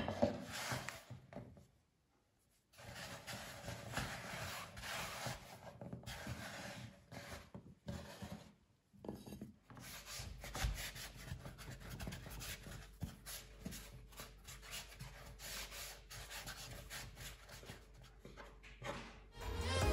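Hands rolling and pressing small pieces of soft dough on a floured wooden pastry board, a soft rubbing and scraping, with light taps of a knife on the board as a dough rope is cut into small pieces near the end.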